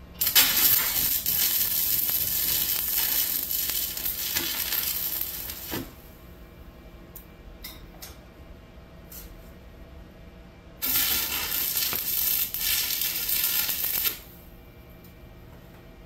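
Stick welding arc crackling and sizzling as a rod burns. The welder is a cobbled-together stick welder running through 8-gauge jumper cables used as welding leads. There are two runs of arc: the first lasts about five and a half seconds, then after a pause the arc is struck again for about three seconds, with a few faint ticks in between.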